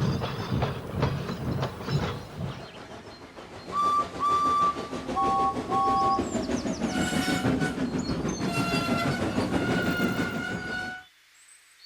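Steam locomotive sound effects: a rhythmic chuff and wheel clatter, then several short whistle blasts, then a longer whistle over hissing steam that cuts off abruptly near the end.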